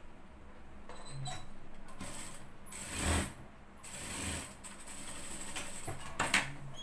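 JACK industrial sewing machine stitching through fabric in several short runs, stopping and starting as the seam is guided.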